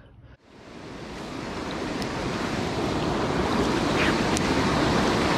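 Rushing water of a river weir, a steady wash of white water that fades up from near silence in the first second, with some wind noise on the microphone.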